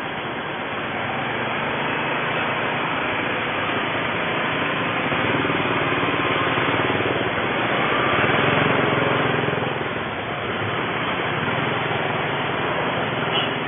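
Small motorcycle and scooter engines running in slow street traffic, heard from a moving scooter as a steady engine hum under a noisy hiss, swelling slightly around eight seconds in.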